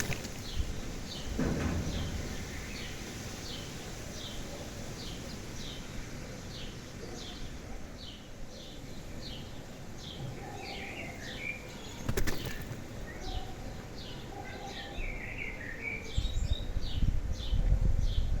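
Garden birds singing: one bird repeats a short, high, falling chirp about twice a second, with another bird's warbling phrases now and then. A sharp click about twelve seconds in, and a low rumble near the end.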